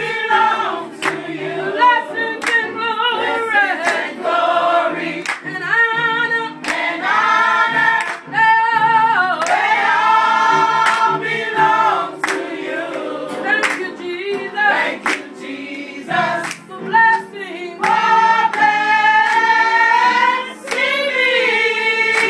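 Gospel choir singing an up-tempo song over a steady, sharp beat.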